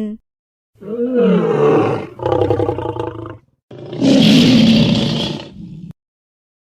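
Lion roaring three times in quick succession, the last roar the longest and harshest.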